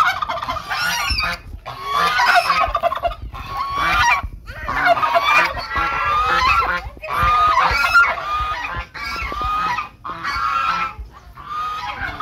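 A flock of white domestic waterfowl calling together in loud, overlapping bursts of about a second each, with only brief gaps between them.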